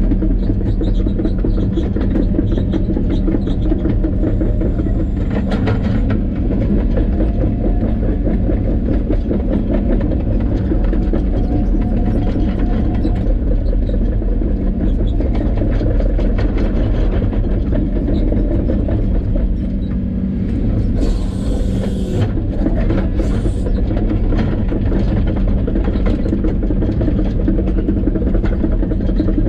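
A steady low mechanical rumble with a constant hum, as from a running vehicle, with short bursts of hiss a little past the two-thirds mark.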